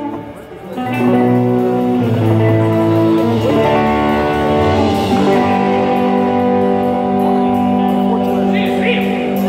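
Live band playing: electric guitar chords over bass and drums. The music dips briefly at the start and comes back in full about a second in.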